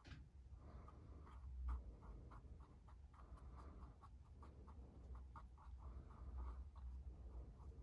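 Faint scratching and light tapping of a wooden toothpick stirring two-part glue on a silicone mixing pad: quick irregular ticks with one louder knock about two seconds in, over a low steady hum.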